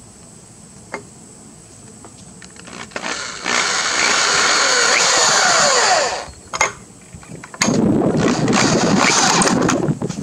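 Cordless drill driving screws through a steel corner brace into pressure-treated 2x4s: two long runs of a couple of seconds each, the first starting about three seconds in and the second just past halfway, with a short blip of the trigger between.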